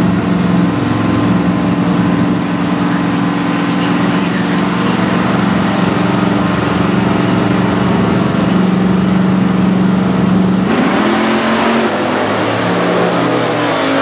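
Super Stock drag car's V8 engine held at steady high revs on the starting line, then about eleven seconds in it launches, the pitch sweeping sharply up as it accelerates hard away down the strip.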